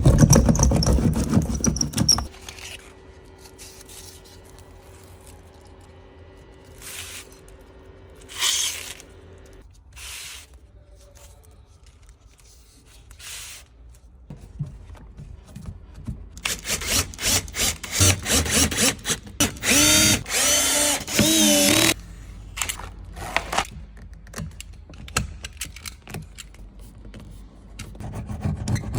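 Workshop tool sounds while car soundproofing is fitted. A loud rush of noise at the start gives way to scattered short scrapes and clicks. Past the middle comes a power drill running in a string of short bursts, its motor pitch wavering.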